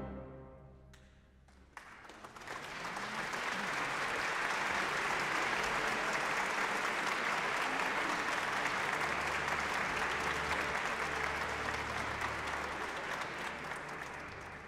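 The final orchestra-and-piano chord dies away in the hall's reverberation, and about two seconds in a concert audience breaks into applause that swells, holds steady and fades near the end.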